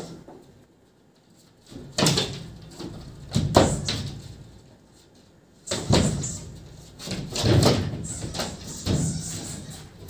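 Cats in the ceiling space overhead making a commotion: about five separate bouts of bumping and scuffling a second or two apart, the loudest about three and a half seconds in.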